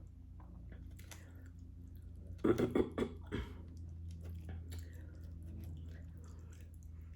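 Close-miked chewing and mouth sounds of someone eating, with a cluster of louder wet bites and smacks about two and a half to three and a half seconds in, over a steady low hum.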